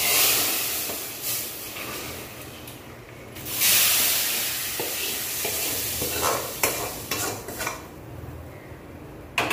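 Hot sesame-oil tempering poured from a kadai into a pot of toor dal kulambu, sizzling hard at the start and again about three and a half seconds in, each burst fading away. A few light metal knocks of the pan follow.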